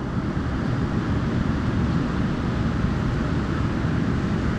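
Steady, rumbling wind noise on the microphone, with no clear events standing out.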